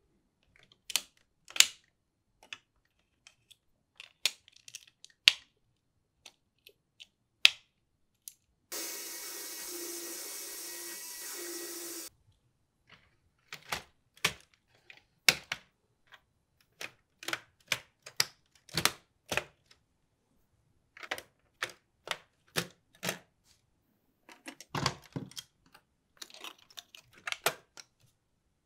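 Lego Technic plastic parts being handled and snapped together by hand: sharp plastic clicks and clatter at irregular intervals. About nine seconds in, a steady whir lasts about three seconds.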